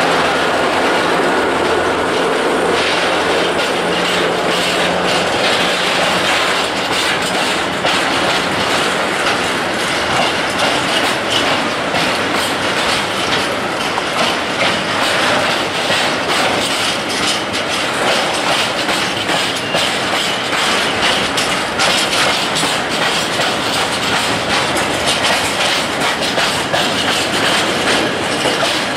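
Loaded tank wagons of a freight train rolling past at close range: a steady rumble of steel wheels on rail with repeated clickety-clack over the rail joints and some wheel squeal.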